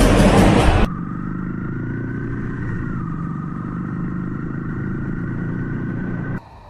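An engine running at a steady speed, with a faint whine that rises a little and then dips. It follows about a second of loud rushing noise and cuts off abruptly near the end.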